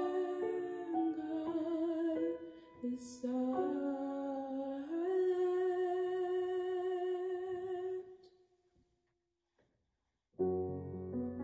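A young woman singing with piano accompaniment, ending on a long held note with vibrato that fades out about eight seconds in. After about two seconds of silence the piano comes back in alone with chords.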